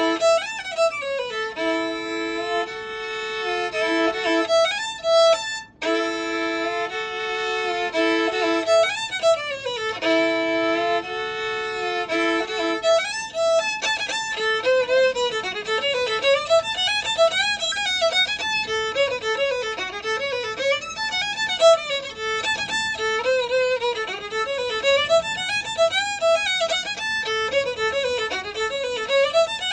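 Solo violin playing a fiddle tune. For the first half it holds long notes joined by slides, with a brief break about six seconds in, then it moves into a quicker run of changing notes.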